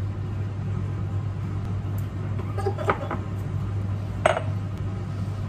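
A drinking glass set down on a hard counter with a single sharp clack about four seconds in, over a steady low hum. A few short, faint sounds come just before it.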